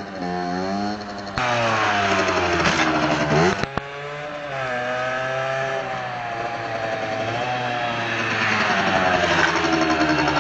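Derbi motorcycle engine revving as it is ridden, its pitch climbing and then dropping off sharply about four seconds in. It then rises again, getting louder toward the end as the bike comes back close.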